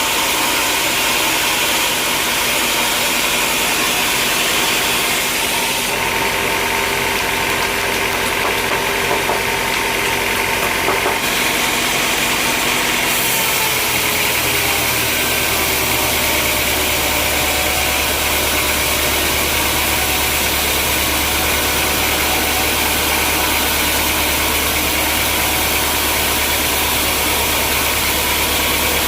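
Sawmill machinery running steadily with a continuous motor hum and noise. The hum drops to a deeper steady tone about halfway through.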